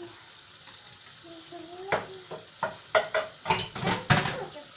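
Plastic dishes and a plastic ladle knocking and clattering in a soapy kitchen sink as a young child washes up. A run of sharp knocks begins about two seconds in and is busiest near the end. A brief child's vocal sound comes just before.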